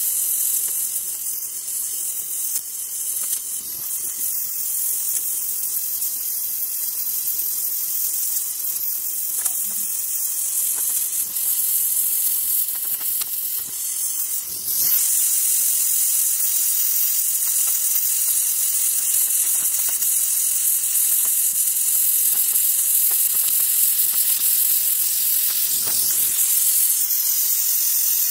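Gas welding torch flame hissing steadily as it melts aluminium filler rod into a motorcycle engine crankcase. The hiss grows louder about fifteen seconds in.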